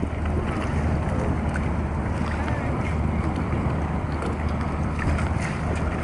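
The cargo ship Taporo VII's engine running with a steady low drone as the ship comes alongside the wharf to dock, under a rushing of wind on the microphone and water along the hull.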